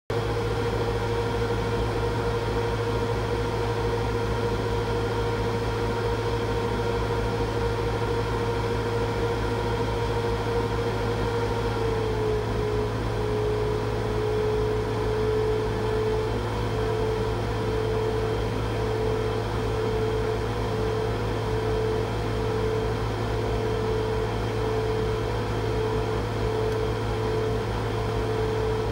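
Laser cutter running while cutting a pattern in thin wood: a steady machine hum with a low drone, plus a whine from the moving head that drops slightly in pitch about twelve seconds in and then stutters on and off as the head traces the shape.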